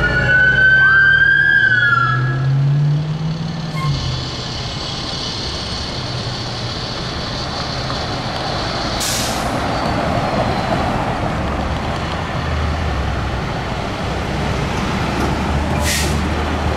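Emergency vehicle siren gliding up and down in pitch over heavy engine noise, both stopping about three to four seconds in. Steady passing-traffic and engine noise follows, with a short hiss near the middle and another near the end.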